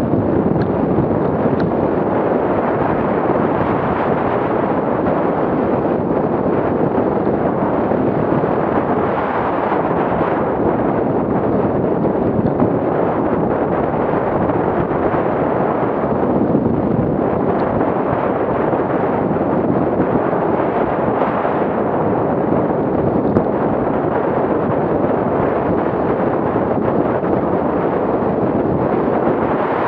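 Steady rushing wind buffeting the microphone of a camera skiing downhill at speed, mixed with the hiss of skis running over packed snow.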